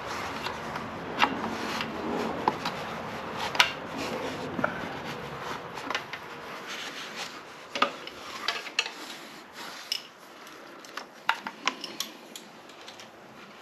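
Hands rustling and rubbing as a wiring harness is pushed through the motorcycle's frame and wiring, with scattered sharp clicks and taps of plastic and metal. The rubbing is busiest in the first half and dies down near the end.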